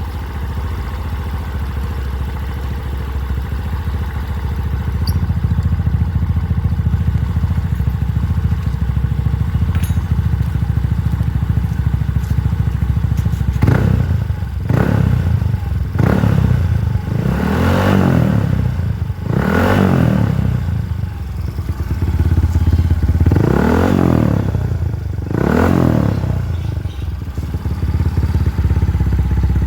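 Yamaha Mio i 125 scooter's single-cylinder engine idling through a REV aftermarket exhaust with its adjustable outlet set to full open. Over the second half it is revved in about six short throttle blips, each a quick rise and fall in pitch, and then settles back to idle.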